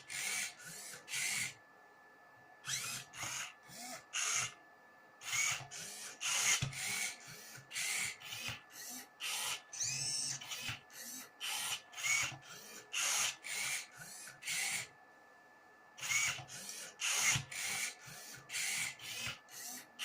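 Motors of a prototype Rubik's cube solving robot turning the cube's faces move after move: short whirring bursts, about two a second, each with a brief rising whine, broken by three short pauses.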